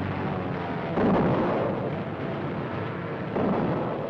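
Warships' anti-aircraft guns firing: two heavy blasts about two and a half seconds apart, the first about a second in, each dying away over a steady rumble.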